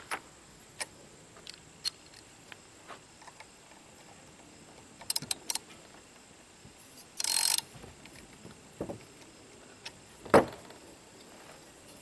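Metal hand tools clicking and clinking against a small Briggs & Stratton carburetor on a wooden bench while its screws are worked loose. The clicks come scattered, with a short rasping burst about seven seconds in and a sharp knock about ten seconds in.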